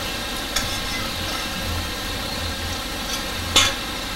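A pan of pot-sticker dumplings sizzling and steaming in oil and water, with a light clink about half a second in and a louder clatter of cookware near the end.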